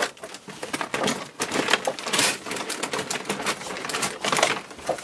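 Cardboard and crumpled packing paper rustling and crackling as hands dig through a cardboard box, in a dense, irregular run of clicks and crinkles.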